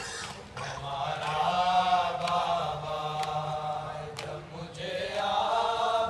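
Men reciting an Urdu noha, a Shia mourning lament, in a slow chanted melody without instruments. It comes as two long drawn-out phrases with a short break between them.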